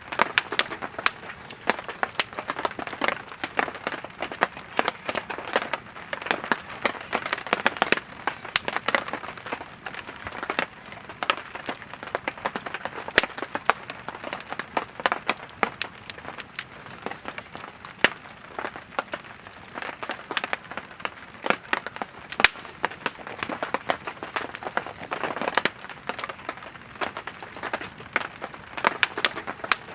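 Wood fire of split firewood burning steadily, with dense, irregular crackles and pops over a steady hiss.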